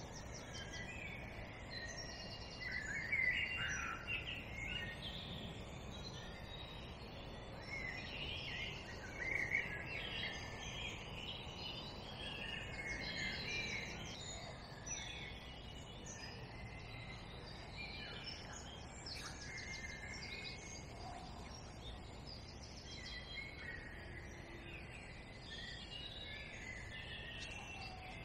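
Dawn chorus: several songbirds singing and calling at once, many short chirps and warbles overlapping, over a steady low background noise.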